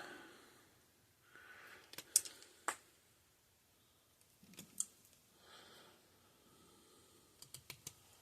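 A few light, sharp clicks and taps scattered through a quiet stretch, from small parts and hand tools being handled on a workbench.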